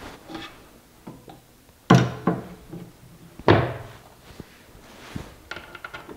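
Two heavy metallic thunks about a second and a half apart, each with a short ring, as a steel electrical control plate bumps into place inside a lathe's sheet-steel cabinet stand. A few lighter clicks and taps follow near the end.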